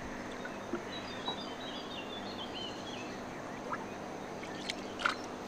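Birds chirping over steady outdoor background noise, with a few faint short clicks and a sharper tap about five seconds in.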